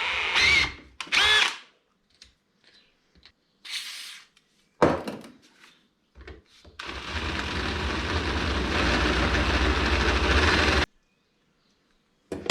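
Electric drill boring a hole with a 10 mm bit: two brief whirs in the first second and a half, a single knock about five seconds in, then one steady four-second run that cuts off suddenly near the end.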